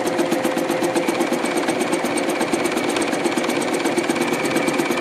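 Home sewing machine running steadily at speed, its needle stitching a three-step zigzag through folded-over elastic and knit fabric, with a rapid, even clatter of stitches.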